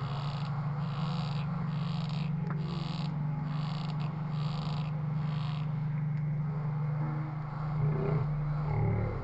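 Crickets chirping in an even pulsed rhythm, about two chirps a second, stopping about six seconds in. A steady low hum runs underneath and wavers near the end.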